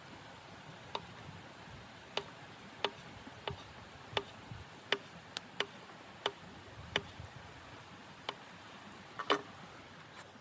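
About a dozen sharp clicks at irregular intervals over a steady hiss, with a cluster of them near the end.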